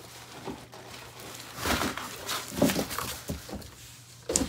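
Cardboard box and packing being handled: a few irregular scraping, rustling bursts as a speaker is pulled out of its box, with a short sharp knock near the end.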